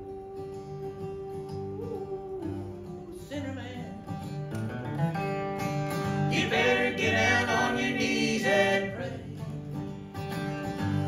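Bluegrass band playing live: acoustic guitar and mandolin with several voices singing in close harmony, the singing growing louder in the middle.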